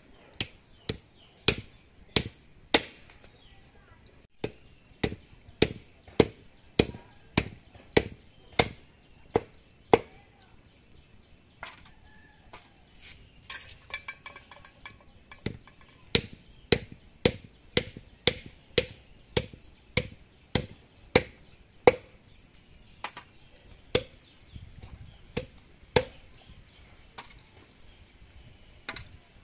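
A heavy wooden-handled chopper striking goat legs (mutton paya) on a wooden log chopping block: a steady run of sharp chops, about one and a half a second, with a break of a few seconds about a third of the way through.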